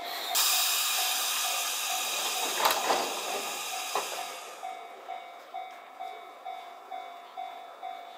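Enoshima Electric Railway (Enoden) train halting at a platform, with a long hiss of released air from about half a second in and a clunk about three seconds in, as its doors open. Through it and on after the hiss fades, a bell-like warning tone repeats a little under twice a second.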